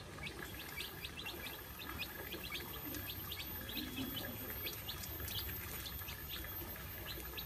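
A small brood of young chicks peeping continually as they feed: many short, high cheeps, several a second, from several birds at once.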